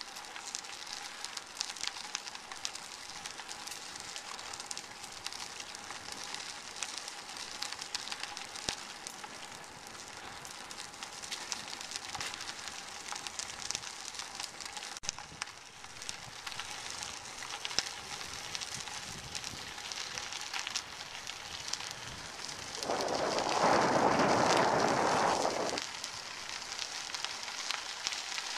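Bicycle tyres rolling on a crushed-stone trail: a steady crackle and patter of grit with small rattles. Near the end a louder rushing noise swells for about three seconds, then drops away.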